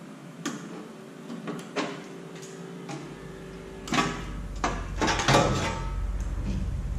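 Sheet-metal patch piece being handled and fitted against a car's quarter panel: scattered metal clanks and scrapes, the loudest about four and five seconds in. A low steady hum comes in about three seconds in.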